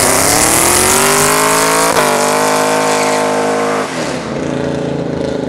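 Chevrolet Camaro ZL1's supercharged V8 revving hard through a burnout, its rear tyres spinning and squealing. The engine pitch climbs, holds high for about two seconds, then drops back about four seconds in.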